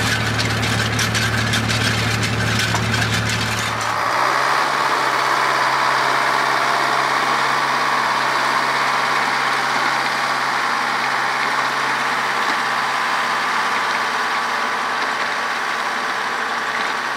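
Tractor engine running as it pulls a potato digger through the soil, a deep steady hum with rattling over it. About four seconds in it changes abruptly to a tractor driving a Pegoraro 250 power harrow, a steadier, higher-pitched running sound.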